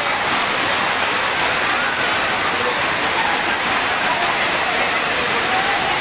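A tall waterfall cascading down a cliff face, a steady rushing of water. A crowd's voices and shouts come faintly over it.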